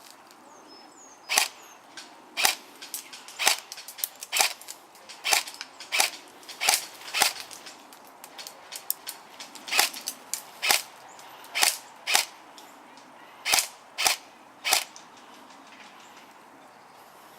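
Airsoft guns firing single shots: sharp, short pops at roughly one a second, a run of them, a brief lull, then a second run.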